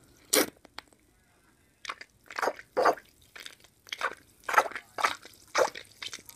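Plastic squeeze-bulb water dropper of a toy car wash being squeezed and released with its nozzle in a tank of water, drawing water up. A quick run of short sounds, about two a second, from about two seconds in.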